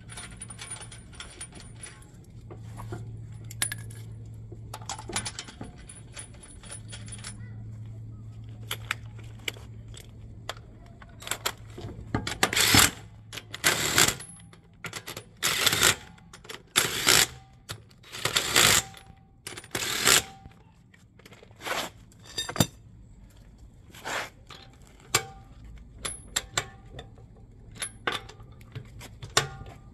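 Metal tools and brake parts clinking and clanking during a rear brake pad and rotor job, with a run of louder metallic clanks about halfway through, some of them ringing briefly. A low steady hum sits under the first several seconds.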